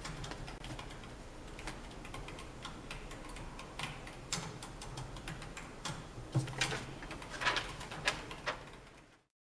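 Light scattered clicks and taps from a pen and paper being handled at a desk, with paper rustling louder about six to eight and a half seconds in, over a faint room hum; the sound stops just before the end.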